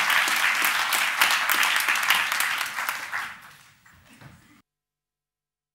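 Audience applause, many hands clapping, dying away about three seconds in and cutting off to dead silence shortly after.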